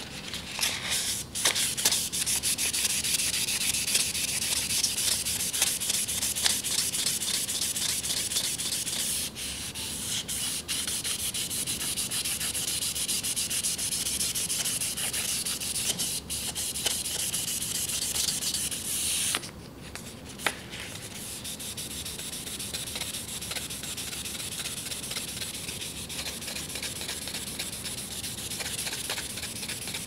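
Sandpaper rubbed briskly back and forth over the steel blade face of a Victorinox chef's knife, polishing out sharpening scratches: a steady scratchy hiss. About two-thirds through it stops for a moment, there is a single click, and the rubbing resumes a little quieter.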